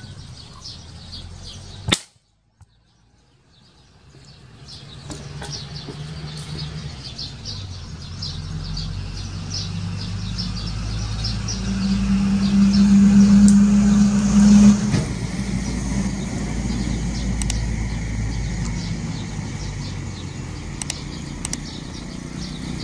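A single sharp air-rifle shot about two seconds in. Then small birds chirp while a motor vehicle passes on the road, its engine loudest in the middle.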